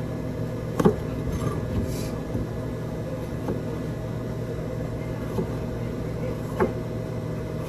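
A steady low mechanical hum from running machinery, broken by a few light clicks and knocks.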